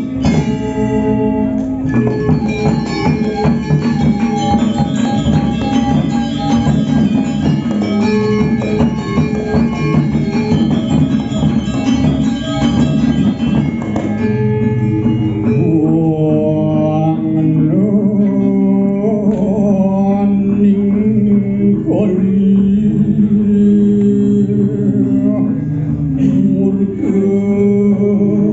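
Live Balinese gamelan playing: ringing metallophone tones with kendang drums. About halfway through, the texture thins and a singing voice comes in over the ensemble.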